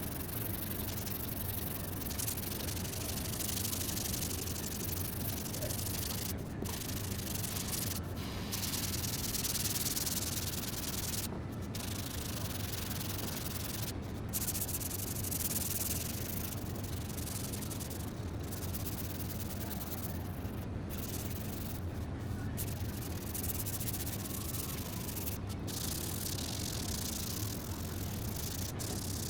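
Sanding of a body-filler repair on a car door panel: a steady scratchy rasp, broken by short pauses every few seconds.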